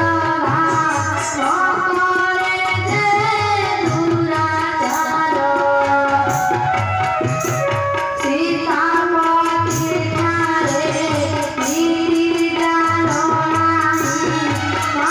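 A girl's voice singing a devotional scripture recitation in long, held, bending lines, over a steady hand-drum rhythm.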